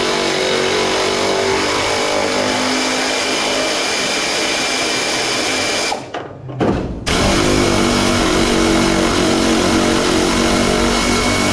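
Power tool running steadily as it backs out a hidden body bolt behind the rocker panel of a 1971 Chevy K5 Blazer. It stops for about a second a little past halfway, then runs again.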